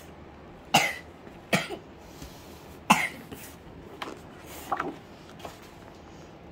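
A child coughing: three sharp coughs in the first three seconds, then a few softer ones.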